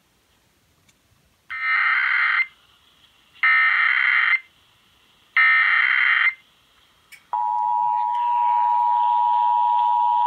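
Emergency Alert System monthly test tones played through a small AM pocket radio's speaker: three short bursts of SAME digital header data, each about a second long, then the steady two-tone EAS attention signal starting about seven seconds in.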